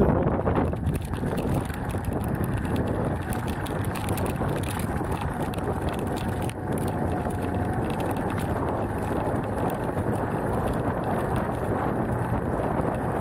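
Beta Alp trail motorcycle's single-cylinder four-stroke engine running as it rides along a gravel track, with the tyres crunching over loose stones and wind buffeting the microphone.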